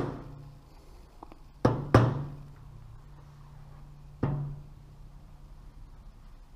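Rubber mallet tapping the joined aluminium upper and lower crankcase halves of a Honda CBX 1000 engine, to bring the mating surfaces flush. There is one knock at the start, two in quick succession a little under two seconds in, and a last one past four seconds, each with a short low ring.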